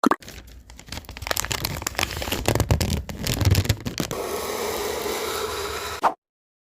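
Dense crackling and scraping noise full of sharp clicks, with a low rumble swelling in the middle, then a steadier rough hiss that cuts off suddenly near the end.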